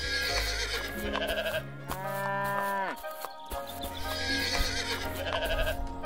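Upbeat cartoon background music with a repeating tune, and about two seconds in a single farm-animal call, held for about a second and dropping in pitch as it ends.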